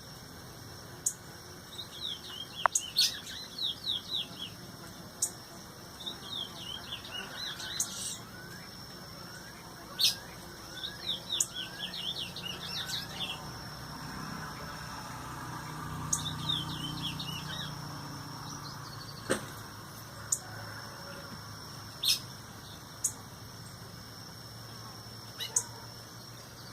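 Small songbird chirping in four quick bursts of rapid, high, downward-sweeping notes, with sharp clicks scattered between them and a faint steady high tone underneath.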